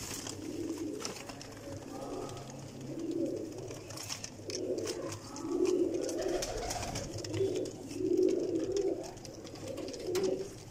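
Domestic pigeons cooing, one low coo after another about every second, with scattered light clicks from the birds moving about.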